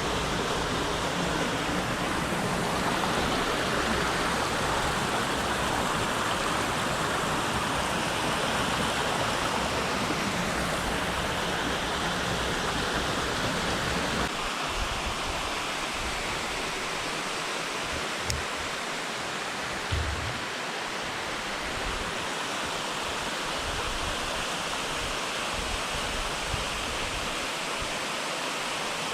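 Waterfall water rushing and splashing in a steady, dense roar. About halfway through, the deep low rumble drops away abruptly, leaving a lighter, higher rush.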